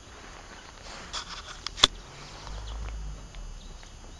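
A dog's footsteps and rustling as it comes down off a wooden agility plank onto grass, with one sharp knock just under two seconds in, followed by a short low rumble.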